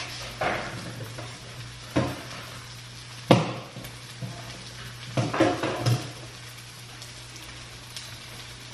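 Knocks and clatters of kitchen utensils and cut fruit being handled while a fruit drink is assembled, the loudest about a third of the way in and a short cluster just past the middle, over a steady low hum.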